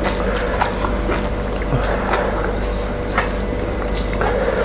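Close-up eating sounds: noodles being chewed and slurped, with small wet clicks and smacks, over a steady low hum.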